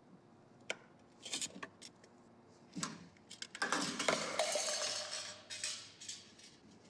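A cup of skewered fruit falls off a truck's front bumper onto a concrete floor: a few light knocks, then a clattering crash about three and a half seconds in, with the cup rattling and rolling for about two seconds.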